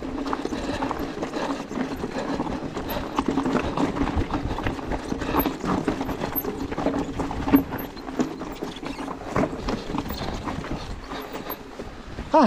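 Specialized Turbo Levo electric mountain bike rolling down loose rocky scree: tyres crunching over stones while the bike rattles and knocks with many irregular clicks.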